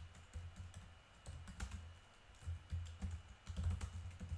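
Typing on a computer keyboard: irregular keystrokes in short runs with brief pauses, each key a light click over a dull thump.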